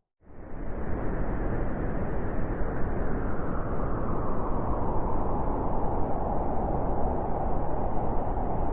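Steady, deep rushing noise of a sleep white-noise track, weighted toward the low end. It cuts in just after the start following a brief silence and swells up over the first second.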